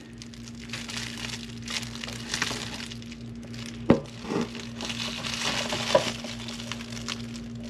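Light crinkling and clinking handling noise with one sharp click about four seconds in, over a steady low hum.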